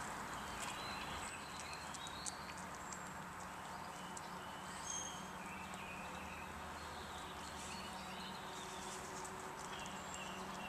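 A greyhound chewing raw chicken, making irregular clicks and crunches of its teeth on the meat.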